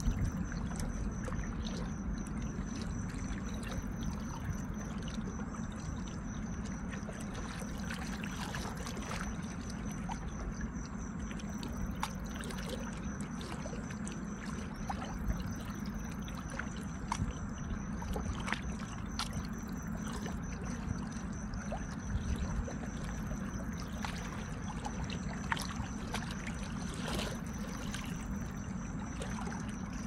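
Water running over rocks, a steady low rush with scattered sharp drips and splashes. A steady high-pitched tone sits above it throughout.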